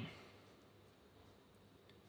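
Near silence: room tone, with a voice trailing off at the very start and one faint click near the end.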